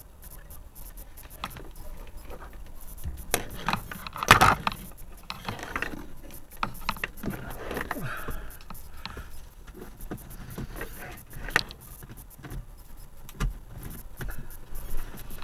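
Handling noises inside a parked car: irregular clicks, knocks and rustling close to the microphone, with the loudest knock about four seconds in.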